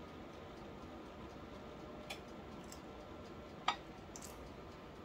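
Faint steady room hum with a few thin steady tones, broken by two small clicks, a light one about two seconds in and a sharper, louder one about three and a half seconds in.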